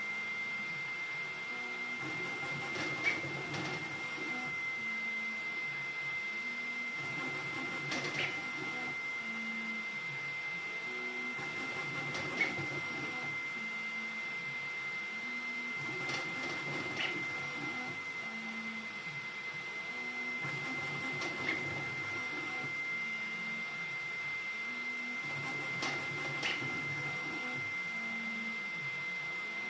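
Creality Ender-3 V3 3D printer running at high speed: its stepper motors chirp in quick stepped changes of pitch over a steady high whine. A sharp tick comes about every four and a half seconds.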